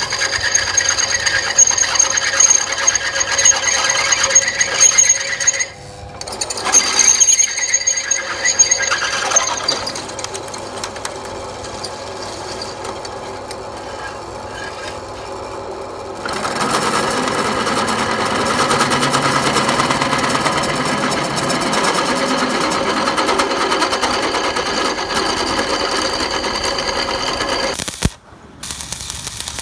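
Drill press boring through a thick steel disc, the bit cutting with a steady high squeal that breaks off briefly about six seconds in. From about sixteen seconds the cutting turns into a lower, steady grinding run until a cut near the end.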